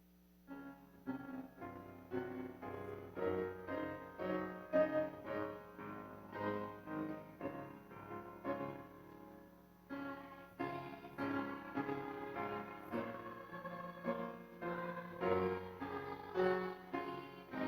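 Piano playing a slow hymn-style tune in full chords, starting about half a second in.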